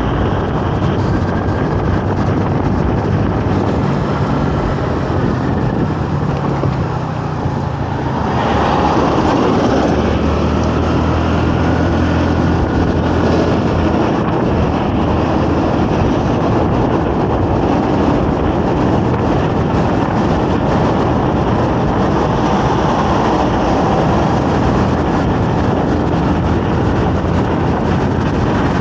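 Honda Navi 110's small single-cylinder four-stroke engine running at road speed, with wind rushing past. About eight seconds in the engine note changes and the sound gets louder.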